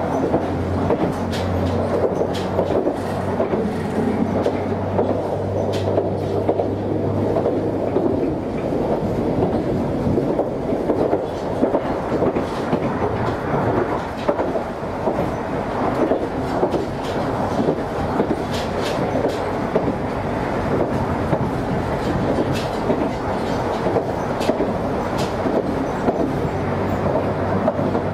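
Chikuho Electric Railway train running at speed, heard from inside the car: a steady rumble of wheels on rail with repeated clicks over the rail joints, and a low hum that fades after about eight seconds and returns near the end.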